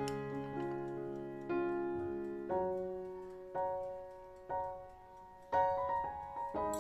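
Background music: a slow melody of struck notes, a new note or chord about once a second, each fading away.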